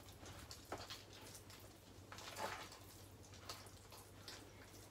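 Faint, scattered scrapes and soft taps of a spoon stirring a thick cottage-cheese batter in a plastic bowl, over a low steady hum.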